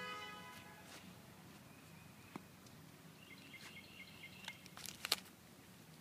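Dog tearing husks off an ear of corn with its teeth: a few sharp crackling snaps of the leaves, the loudest about five seconds in. A bird chirps in the background around the middle.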